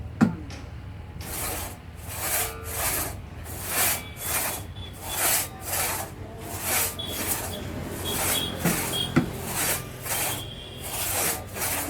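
A hand tool rasping on wood in even back-and-forth strokes, about two a second, over a low steady hum. A single knock comes just after the start, and the strokes begin about a second in.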